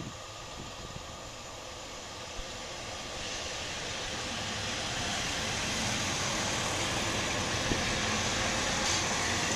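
A Northern Class 142 Pacer diesel multiple unit approaching along the line and passing close by, its engine and wheel noise growing steadily louder as it nears, with a single click from the wheels near the end.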